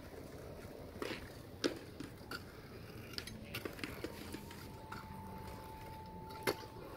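A kick scooter riding a concrete skatepark: scattered sharp clicks and clacks of its wheels and deck on the concrete, the sharpest one near the end.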